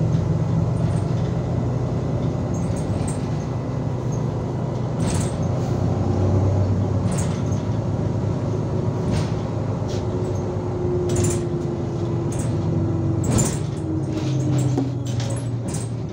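Cabin sound of an IVECO Urbanway 18 m articulated bus under way: a steady low engine and drivetrain drone. A higher whine joins in the middle and drifts down before fading, and short clicks and rattles come at irregular moments.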